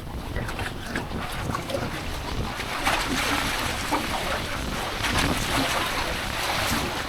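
Wind buffeting the microphone over sea water washing below. A louder hiss of water swells about three seconds in and eases near the end.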